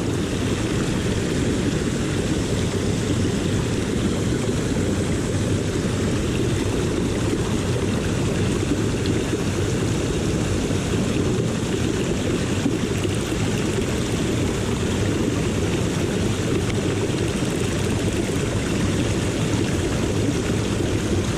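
Steady rushing of a flowing river, an even noise that neither rises nor falls.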